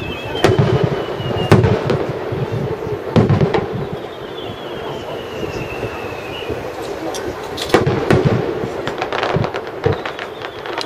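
Aerial fireworks shells bursting with loud booms: several single bangs spaced a second or more apart, then a cluster of sharp crackling reports near the end. High thin whistles slide slowly down in pitch behind them.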